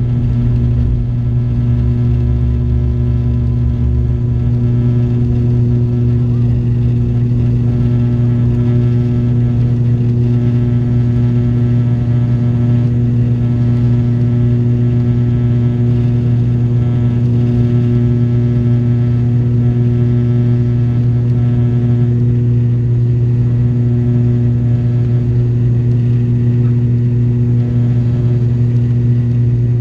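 The ATR 72-600's Pratt & Whitney PW127M turboprops and six-blade propellers at takeoff and climb power, heard from inside the cabin as a loud, steady propeller drone. A low rumble from the wheels on the runway stops about four seconds in as the aircraft lifts off.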